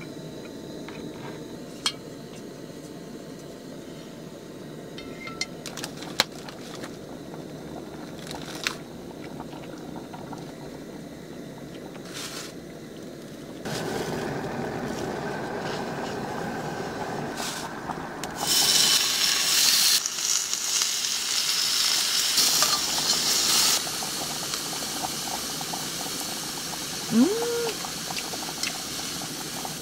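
Clicks and clatter as a small portable gas stove is set up, then a cast-iron skillet sizzling as beef goes into the hot pan. The sizzle is loud from about 18 to 24 seconds in, then settles to a steady sizzle. A short rising squeak comes near the end.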